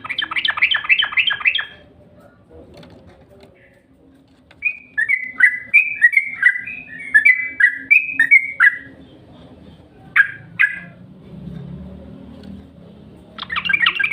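Yellow-vented bulbul (trucukan) singing: a quick run of about six sharp notes, then a chattering phrase of bubbly downslurred whistles, two single notes, and another quick run near the end. A lure song of the kind played to get caged trucukan singing.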